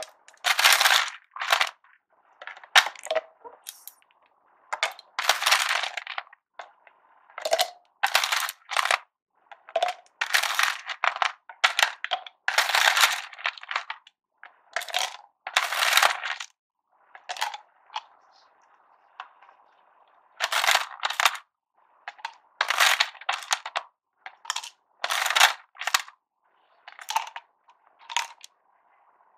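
Ice cubes clinking and clattering as they are taken by hand from a tub of ice and dropped one by one into a tall bottle of milky coffee mixture. Dozens of sharp clinks come in irregular clusters with short pauses between them.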